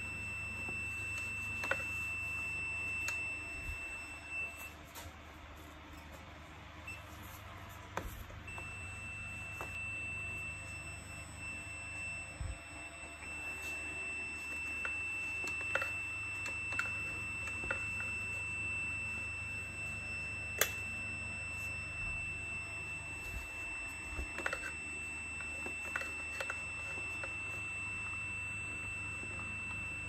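Digital multimeter's continuity buzzer sounding a steady high-pitched beep, the sign that its probes are across a closed, low-resistance connection in the vacuum's wiring. The beep cuts out for a few seconds about four seconds in, then resumes, with scattered clicks from gloved hands handling the motor and wires.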